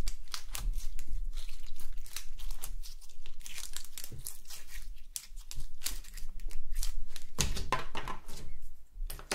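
Glittery slime squeezed and pulled apart in the hands, giving a dense run of small crackles and tearing sounds: the slime tears instead of stretching.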